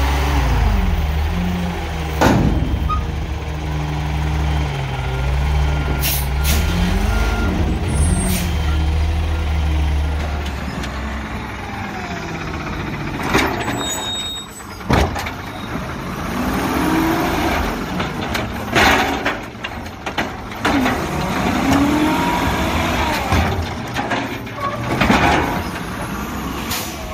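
Front-loader garbage truck, a Mack LR, revving its engine to work the hydraulic forks while emptying a dumpster, the engine pitch rising and falling. After a cut about ten seconds in, an automated side-loader garbage truck runs its arm to lift and dump a wheeled cart, with several sharp bangs and air-brake hiss.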